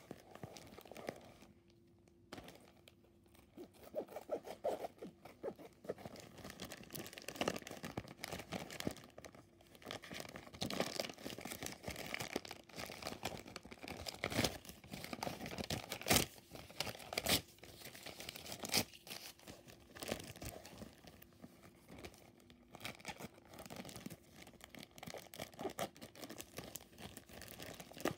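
Clear plastic shipping bag crinkling and rustling as it is handled and pulled open, with a few louder sharp crackles around the middle.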